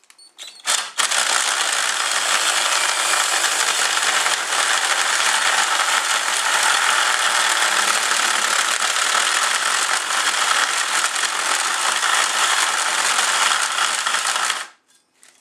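Cordless drill spinning a four-toothed socket-reaming cutter that grinds glued-in PVC pipe out of an ABS fitting, a steady loud cutting noise. A few light clicks before it starts about a second in, and it stops shortly before the end.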